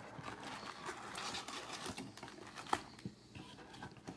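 Topps Series 1 baseball card packaging being torn open by hand: cardboard and wrapper rustling and crinkling, with a few sharp crackles about two and two and a half seconds in.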